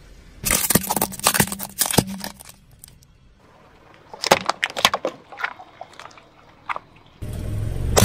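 A car tyre rolls over plastic candy-filled toy umbrellas, giving a quick run of sharp cracks and crunches. After a short lull there is more cracking as it flattens drink cans, and near the end a louder, denser crunching begins.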